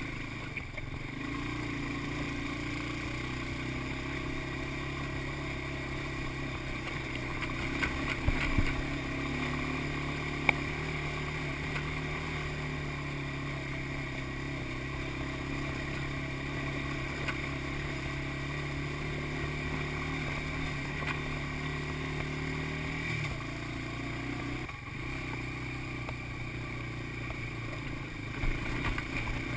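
An ATV engine running steadily at a constant low speed, its note dropping slightly about 23 seconds in, with a few clatters and knocks around 8, 10 and 28 seconds.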